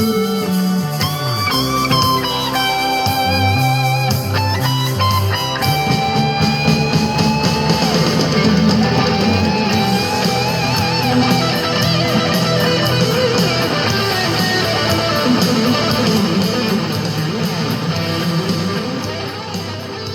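Instrumental section of a rock song, with a lead electric guitar bending and sustaining notes over bass and drums, played through a homemade ammo-can Bluetooth speaker with 4-inch drivers. It fades down near the end.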